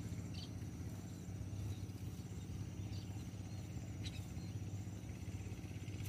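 A steady low outdoor rumble, with a few short, faint high chirps from munias (emprit) at the trap about half a second, three and four seconds in. A thin, steady insect-like buzz runs underneath.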